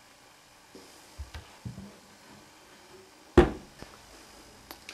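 A few light knocks, then one sharp, loud thump about three and a half seconds in, with small clicks near the end.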